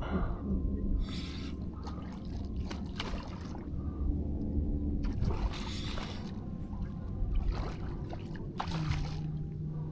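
Shallow saltwater splashing and sloshing in irregular bursts while a hooked speckled trout is fought and brought in by an angler wading.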